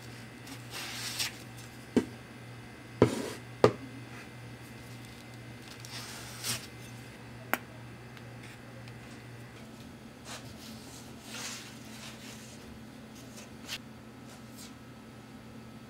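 Putty knife and plastic spreader scooping and smearing body filler on cardboard and onto a plastic bumper. Soft scraping and squishing strokes, with a few sharp taps of the tool, the loudest about two, three and three and a half seconds in. A steady low hum runs underneath.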